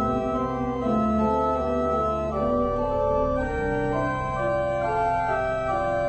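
Church organ playing slow, sustained chords that change every second or so, over held bass notes from the pedals.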